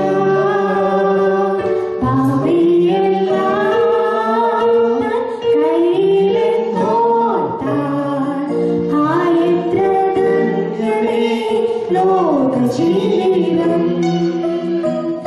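A woman singing a song into a handheld microphone, amplified, with long held notes that glide between pitches.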